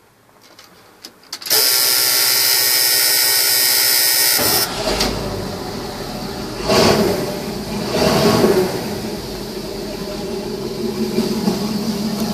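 1987 Ford F600's 370 cubic-inch gasoline V8 being started: after a few light clicks, the starter motor cranks with a steady whine for about three seconds. The engine then catches and runs, swelling twice before settling into a steady idle.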